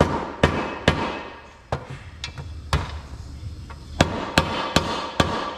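A red soft-face mallet tapping a metal seal driver to drive the starter shaft seal into its bore in the motorcycle case. The taps are sharp: three quick ones at the start, two single ones in the middle, then four quick ones near the end.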